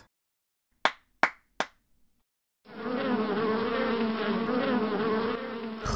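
Three quick claps about a second in, then, from nearly three seconds in, a bee's buzz, a cartoon sound effect, steady in loudness and wavering slightly in pitch.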